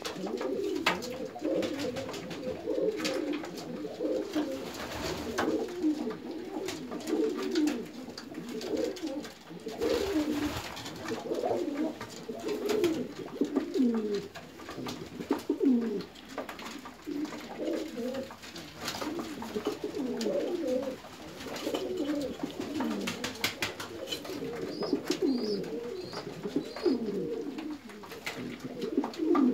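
A loft full of domestic fancy pigeons cooing, many low, overlapping coos that keep going without a break, with scattered knocks and scuffles from the birds.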